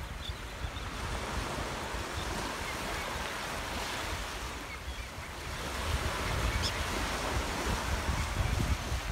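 Small waves breaking and washing up over the sand at the shoreline in a steady, swelling hiss, with wind rumbling on the microphone. The surf grows a little louder about six seconds in.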